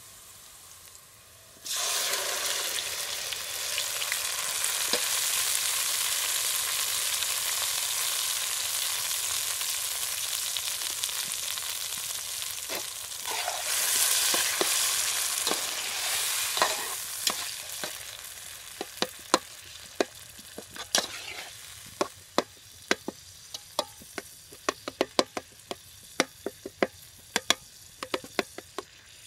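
Chopped tomatoes hitting hot oil and onions in a black frying pan: a loud sizzle starts suddenly about two seconds in and runs on, fading over the second half. A metal spoon stirs the pan, its sharp clicks and scrapes against the pan coming several a second near the end.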